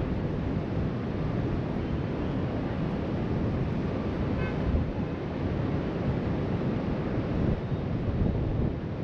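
Ocean surf breaking steadily along the beach, mixed with wind buffeting the microphone in a low, uneven rumble.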